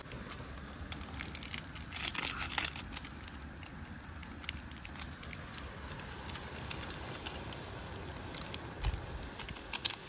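Wood fire crackling under a kadai of instant noodles cooking, with scattered sharp pops over a steady hiss and a louder burst of rustling about two seconds in.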